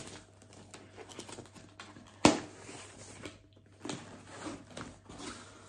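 A cardboard box and its packaging being handled on a table: light rustling and tapping, with one sharp knock about two seconds in.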